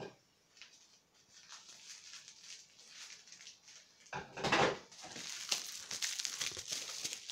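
Plastic packaging rustling and crinkling as small packets of embellishments are handled: light scattered clicks at first, a louder burst about four seconds in, then steady crinkling.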